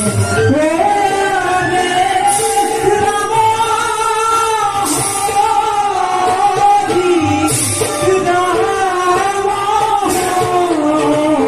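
Live Bhaona stage music: a voice singing long, wavering held notes over the accompaniment, with a bright clash, likely hand cymbals, recurring about every two and a half seconds.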